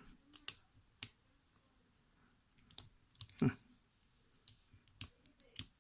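Scattered light clicks and ticks of a short hook pick and tension wrench working the pins in the keyway of a brass-bodied three-pin padlock, irregular with a small cluster a little past halfway.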